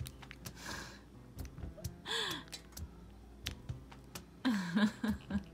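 Fingers squeezing and working a small plastic Popin' Cookin' candy packet: light crinkling and scattered soft clicks, with a brief breathy vocal sound near the end.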